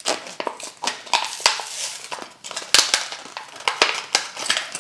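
Clear plastic blister of a Hot Wheels toy-car package being bent, crushed and pried off its card by hand: a dense, irregular run of sharp crackles and snaps.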